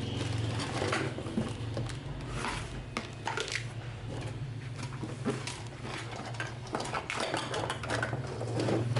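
Clattering and rustling of a box and small toys being handled, with many short clicks throughout over a steady low hum.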